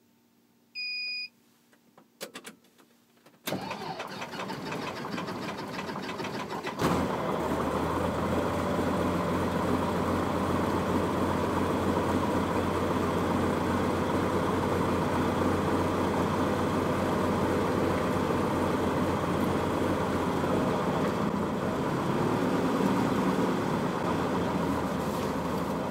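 A short beep and a few clicks, then the starter cranks a fuel-injected aircraft piston engine for about three seconds. The engine catches and settles into a steady run.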